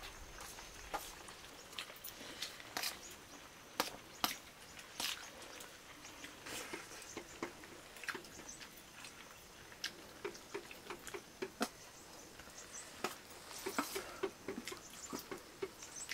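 Irregular small clicks, taps and soft mouth smacks, more of them in the second half, as of people eating a meal of rice and curry.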